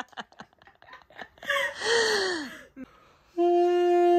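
A breathy rush of air with a falling pitch comes about halfway in. From about three seconds in, an Armenian duduk sounds a clear, steady held note, its reed wetted so that it opens and plays.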